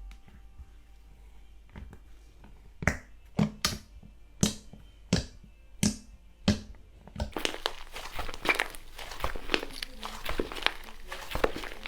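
Slime being handled and pressed: a run of about seven sharp pops roughly every half second, then dense, continuous crackling from about seven seconds in.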